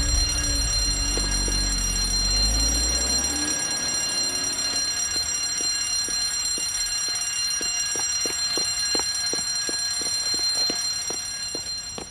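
Electric fire alarm bell ringing steadily with a high, continuous ring. A low rumble fades out over the first few seconds, and in the second half quick footsteps fall about three a second.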